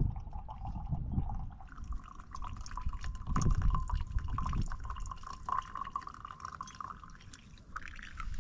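Hot water poured into a pour-over coffee dripper, with brewed coffee streaming through into a camp mug. The pitch of the filling rises as the mug fills near the end, and there are a few low thuds.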